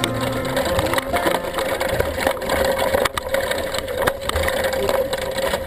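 Wheels of a dryland mushing rig rolling fast over a soft forest trail: a continuous rattling and crunching full of small clicks, with a thin steady whine underneath.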